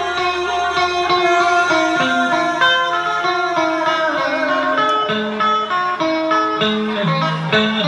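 Instrumental music: an electric guitar plays a stepping melody line over accompaniment with a moving bass line, and no voice.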